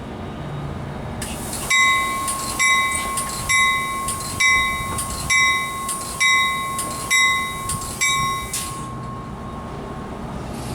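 Train bell ringing steadily, about eight strokes a little under a second apart, that stop near the end, over the low rumble of a passing train.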